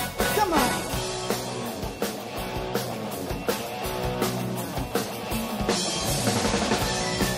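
Live rock band playing a song, with drum kit and electric guitars, with no talking over it. A quick downward slide in pitch comes about half a second in, and the sound thickens and grows brighter near the end.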